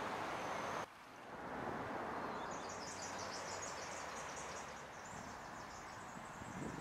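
Wind noise and rushing floodwater as a steady hiss that drops away abruptly about a second in, leaving a quieter outdoor hiss. From about two and a half seconds a fast, pulsing high-pitched chirring joins in.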